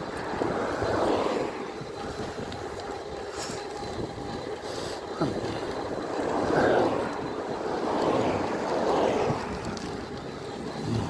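Wind rushing over the microphone of a moving e-bike, with the swelling rush of an oncoming car as it passes in the second half.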